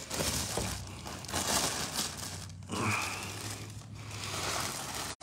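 Plastic wrapping crinkling and rustling in several bursts as a subwoofer is pulled out of it.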